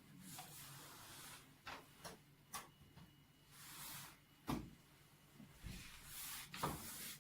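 Faint handling sounds as a computer mouse is plugged into the hematology analyzer's USB port: rustling, several sharp clicks, and two dull knocks, one about halfway through and one near the end.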